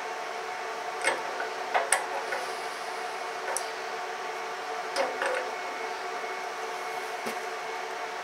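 Adjustable spanner working a fitting on an air compressor's gauge panel, giving a handful of sharp metallic clicks as the spanner is set on and turned. A steady hum runs underneath.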